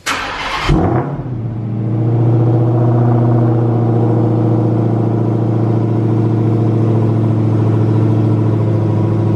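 Dodge Challenger SRT Hellcat's supercharged 6.2-litre Hemi V8 starting up: a short burst of cranking and fire-up in the first second, then a steady idle. This is a cold start after the car has sat through the winter.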